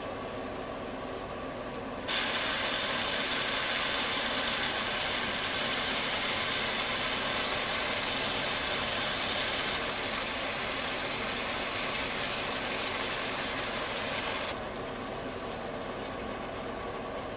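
Stir-fry sizzling in a hot wok: a loud even hiss that starts suddenly about two seconds in, eases a little partway through and stops abruptly a few seconds before the end, over a steady low hum.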